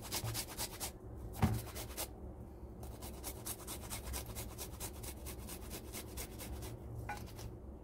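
Garlic being grated on a small stainless-steel hand grater: quick, even rasping strokes, about five or six a second, with a short break and a single knock about a second and a half in.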